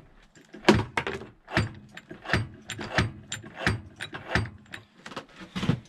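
Ratchet wrench clicking as the Yamaha YFM350ER's single-cylinder engine is turned over by hand, about two to three clicks a second, with a heavier knock about a second in. The clunk is a sign of damage deep inside the motor, beyond the broken centrifugal clutch.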